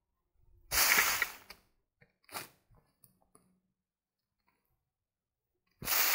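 A shovel digging into soil: two loud strokes, each about a second long and about five seconds apart, with a few fainter short ones between.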